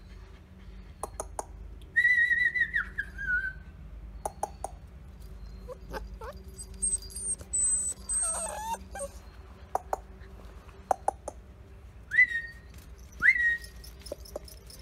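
A person whistling short calls: a longer wavering whistle about two seconds in that drops in pitch at its end, then two short whistles that rise and hold near the end, with light clicks and scuffs in between.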